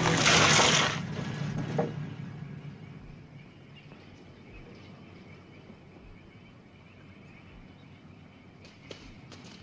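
A truck engine with film music over it, fading out within the first two seconds, leaving faint outdoor ambience with a few light clicks near the end.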